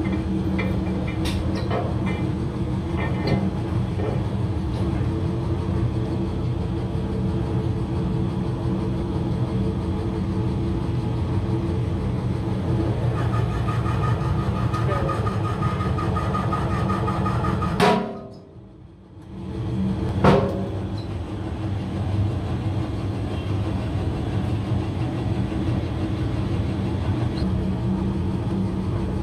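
Heavy workshop press running with a steady low machine hum and occasional sharp metal clicks. A little past the middle the hum drops away for about two seconds, bracketed by two loud clicks, then carries on.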